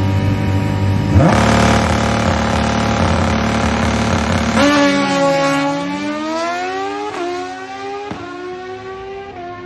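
Drag-racing motorcycle engine at full throttle accelerating down the strip, its pitch climbing and dropping back at each gear change as it fades into the distance.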